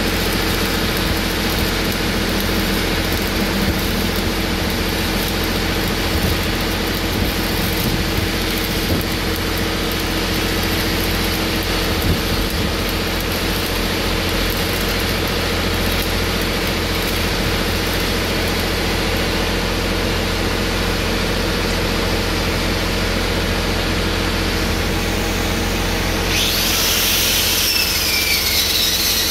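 Stick welding on a steel pipe joint: steady arc noise over a steady low hum. Near the end an angle grinder starts on the pipe with a high whine that drops in pitch.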